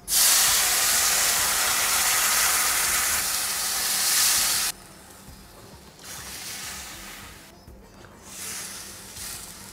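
Water poured into a hot steel pan of ghee-roasted wheat rava hissing loudly as it turns to steam on the hot pan, then cutting off abruptly after about five seconds. A quieter sizzle follows as the mixture is stirred with a spatula.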